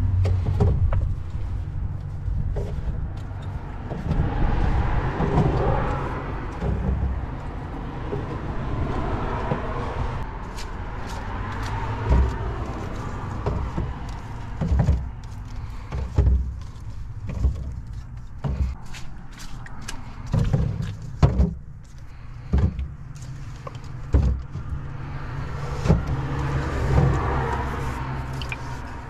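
Plastic soda bottles set down one after another on a plywood cabinet shelf, giving short irregular knocks, over the steady low hum of an idling car engine.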